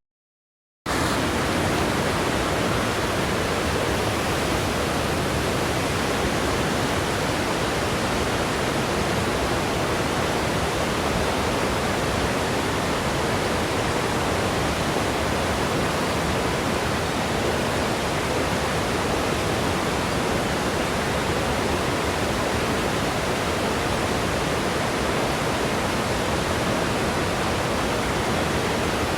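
Close, steady rushing of a waterfall on a creek: an even wash of falling water with no change, coming in loudly after a split second of dead silence at the start.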